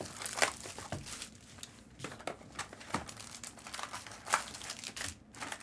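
Plastic wrapping crinkling and tearing in irregular short crackles as trading-card packs are handled and opened.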